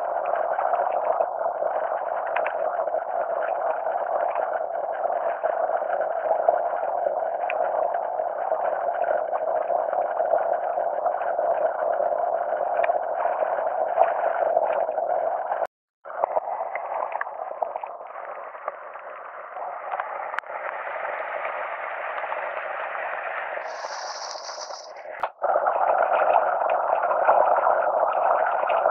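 Fast-flowing stream rushing over rocks and splashing around wellington boots as a person wades through it. The sound cuts out briefly about halfway through and again near the end, and is quieter in between.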